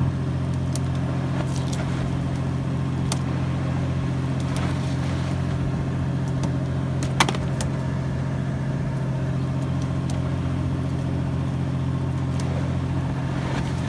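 A fishing boat's engine running with a steady low hum, with scattered small clicks from tackle being handled and one sharp knock about seven seconds in.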